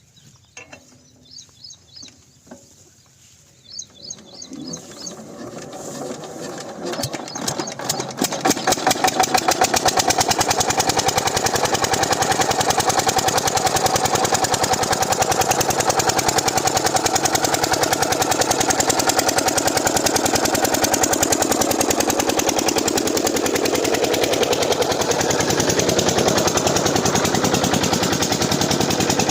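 An 8 hp single-cylinder diesel pump-set engine starting up. About four seconds in its firing strokes begin as separate thuds and quicken, and it settles into a loud, steady, fast chugging run. Birds chirp faintly before it starts.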